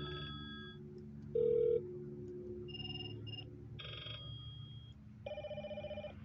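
A VTech toy phone playing short electronic ringtone samples one after another as its arrow buttons step through the ringtone menu. A short beep from a button press comes about one and a half seconds in, and the last sample, near the end, is a rapid trilling ring like a telephone bell.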